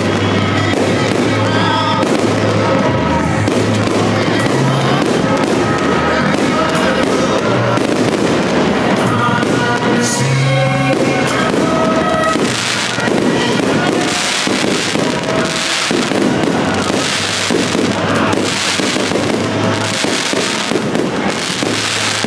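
Aerial fireworks bursting over and over, the bursts coming thick and fast from about twelve seconds in, with music playing throughout.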